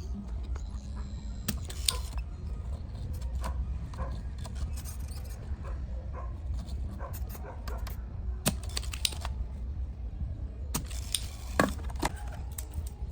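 Small metal parts and tools clinking and tapping in irregular sharp clicks, with a busy cluster about two thirds of the way through, over a steady low hum.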